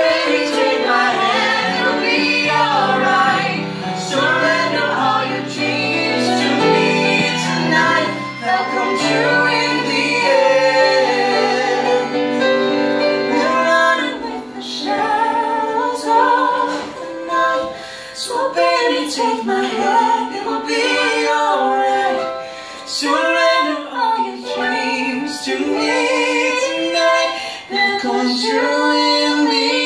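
A woman singing a pop love song, accompanied live on piano.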